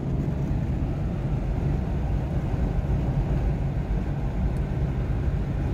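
Steady road and wind noise inside the cabin of a 1995 Nissan Pathfinder WD21 cruising at about 70 mph, over a low steady drone. The cabin is a little noisy, which the owner puts down to worn window felts and door channel weather stripping.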